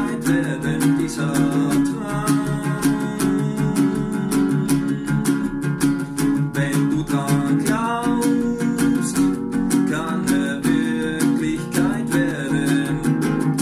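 Small nylon-string classical guitar strummed in a steady rhythm, playing chords as song accompaniment.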